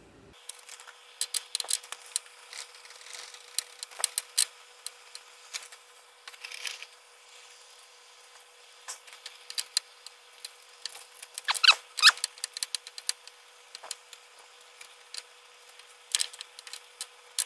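Hand ratchet wrench clicking in short, irregular runs, with metal scrapes and knocks, as the alternator's top mounting bolts are turned in.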